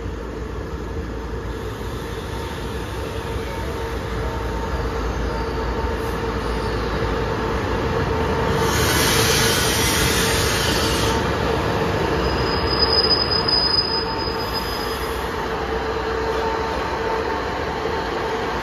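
Air-conditioned diesel railcar train pulling into a station and stopping, its running growing louder as it comes alongside. A loud hiss comes about halfway through, then a brief high squeal as it brakes to a stop.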